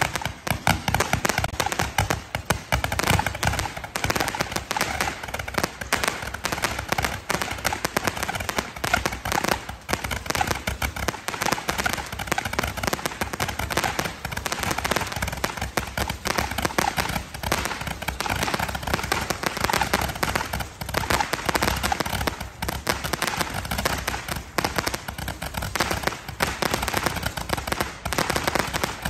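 Handheld firework tube firing a rapid, unbroken stream of shots, each bursting overhead into crackling stars, so that dense popping and crackling go on without a pause.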